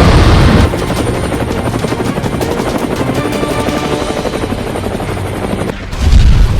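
Rapid, steady mechanical chopping flutter that runs for about five seconds. A loud boom fades out in the first half-second, and another loud boom hits near the end.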